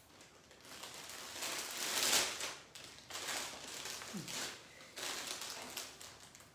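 Crinkling, rustling handling noise in three bouts of one to two seconds each, the loudest about two seconds in.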